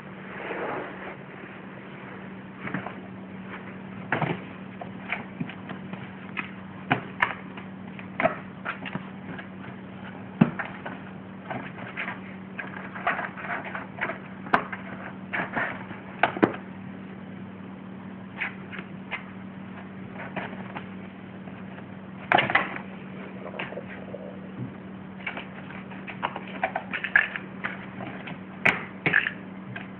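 Kitten's paws and claws batting and scratching at a cardboard box, making irregular taps, scratches and rustles in uneven clusters, over a steady low hum.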